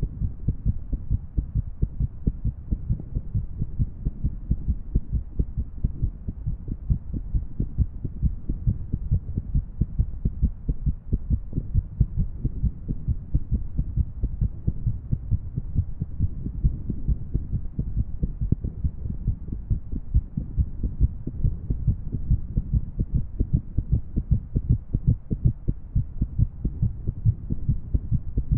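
A woman's heartbeat recorded close up: low, dull thumps repeating in an irregular rhythm.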